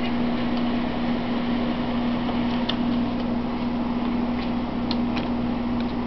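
Electric fan running with a steady hum, with a few faint light clicks over it.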